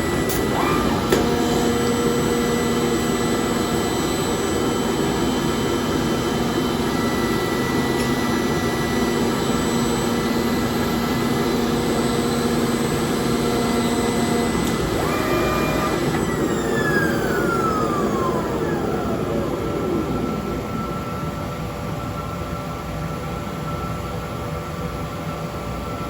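Glove-factory machinery running with a steady roar and a motor whine; about sixteen seconds in a motor is switched off and its whine falls in pitch as it spins down, while the roar of other machinery continues.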